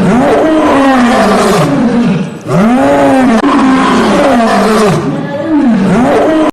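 A big cat roaring: a run of loud calls that rise and fall in pitch, with a brief break about two and a half seconds in, cutting off suddenly at the end.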